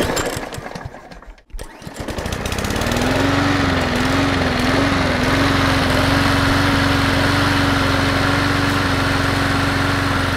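Small engine, a lawn mower's, starting. A first burst fades and drops out about a second and a half in. Then the engine catches and runs, its pitch wavering briefly before settling to a steady speed.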